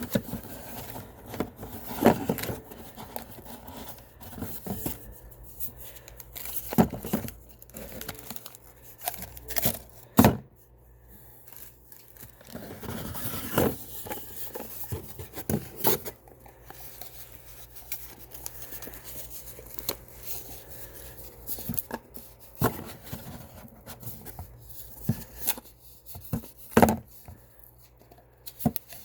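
Packaging tubes being opened one after another by hand: tearing and rustling with irregular sharp clicks and knocks.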